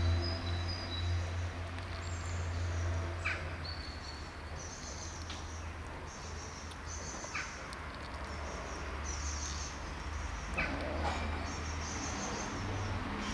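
Kittens eating wet cat food from a plastic tub, with a few soft clicks, under steady high-pitched chirping from the surroundings. A low hum fades out over the first few seconds.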